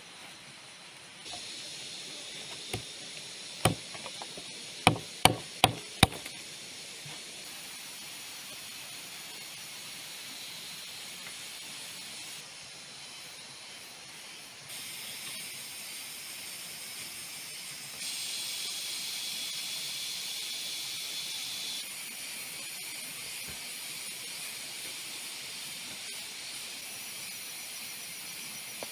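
Steady high-pitched chorus of rainforest insects, jumping in level at several points. A few seconds in comes a run of sharp knocks, the last four quick and evenly spaced, the loudest sounds here.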